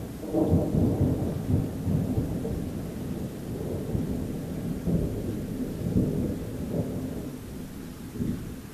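Rolling thunder: a low rumble that breaks out about half a second in, swells several times and eases off near the end.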